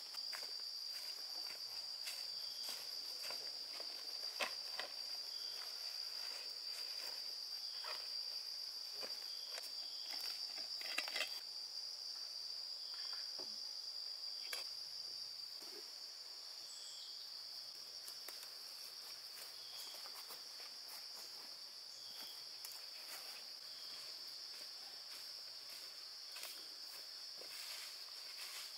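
A steady, high-pitched insect drone, with scattered rustles and snaps close by, the loudest about four and eleven seconds in.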